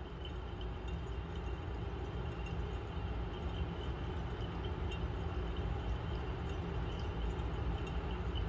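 Magnetic stirrer running, its stir bar spinning a thick mix of rose-petal extract and deer-musk soil in a large glass jar: a steady low rumble with faint scattered ticks.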